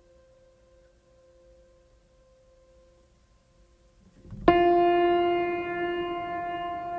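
Ambient relaxation music: soft held tones, then about four and a half seconds in a loud sustained keyboard chord rich in overtones enters sharply after a brief swell and rings on.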